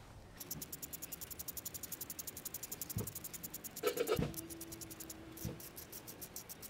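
A Bic lighter's steel spark wheel rolled slowly against its ferrocerium flint, grinding the flint into dust. It makes a faint, fast run of ticks, about ten a second, with a short break and a brief louder sound about four seconds in.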